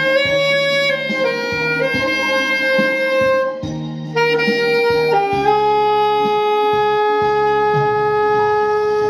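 Alto saxophone playing a melody over a backing track with a steady beat: a run of shorter notes, then one long held note from about five seconds in.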